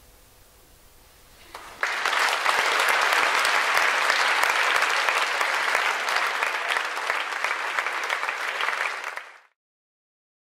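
Audience applause breaking out about two seconds in after a moment of quiet, a dense, even clapping that cuts off suddenly near the end.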